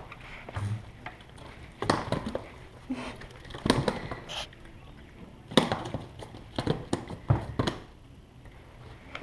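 A handful of sharp knocks and clatters at irregular intervals, like gear being handled, over a quiet background.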